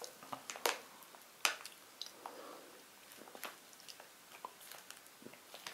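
A person chewing a crunchy snack: faint, irregular crunches and small clicks.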